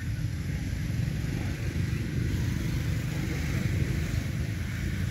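Steady low rumble with a faint hiss above it: outdoor background noise, with no distinct animal calls.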